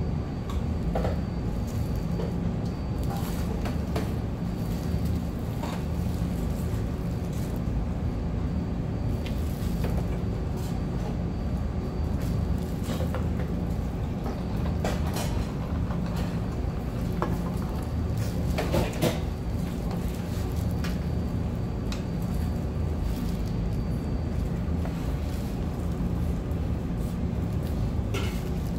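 Eating sounds over a steady low hum: scattered crunches and clicks as fried chicken is chewed and handled with plastic-gloved hands, and a can of cola poured into a cup about halfway through.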